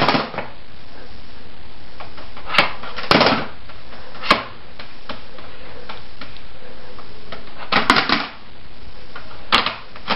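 Plastic CD cases clacking and clattering in short bursts as a cat paws at them and pulls them from a CD rack, over a steady hiss.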